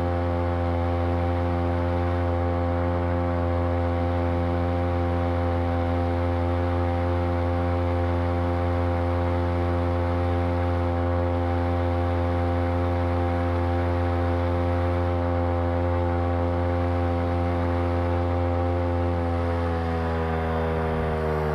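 Home-built outboard motor, a Champion T516 trimmer's two-stroke engine on a Sailor 2.0 lower unit, running steadily at high speed; its pitch drops near the end as the engine slows.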